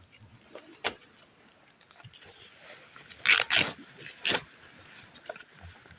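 A small campfire of dry banana leaves and bamboo catching, giving a few sharp cracks and pops, the loudest a close pair about three seconds in, over a steady faint high hiss.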